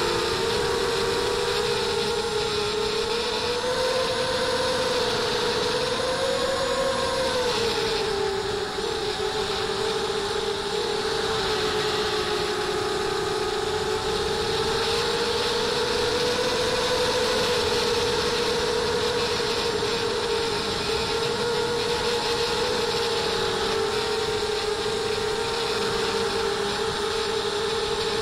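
The brushless motors and 5x4 props of a ZMR250 FPV racing quadcopter whining steadily in flight, picked up loud and close by the onboard camera, over a steady hiss. The pitch shifts a little up and down with the throttle.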